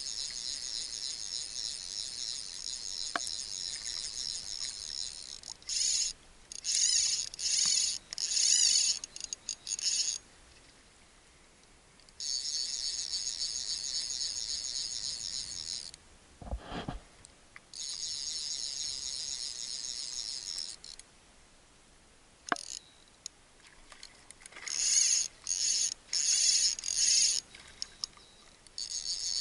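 Fishing reel drag buzzing as a hooked bonefish takes line. It comes in long steady runs and short stop-start spurts, with two pauses of a couple of seconds.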